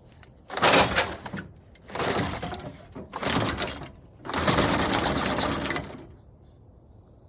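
Four pulls on the recoil starter rope of a Troy-Bilt TB25SB 25cc two-stroke string trimmer, each a rattling crank of the engine about a second long, with the last pull the longest; the engine does not start. The trimmer is hard to start.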